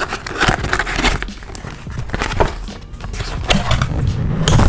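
Cardboard shipping box being handled and opened: irregular rustling, scraping and small knocks of cardboard.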